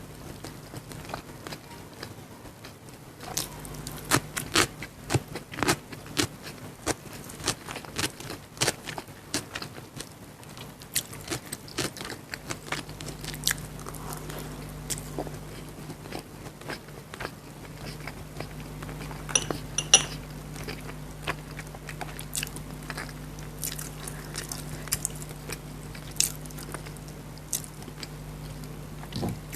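Close-miked mouth sounds of a person eating chicken biryani: irregular wet chewing, smacking and small crunches, over a steady low hum. A brief ringing clink comes about two-thirds of the way through.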